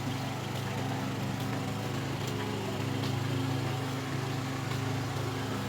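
An engine running steadily with an even, low hum, with a few faint clicks over it.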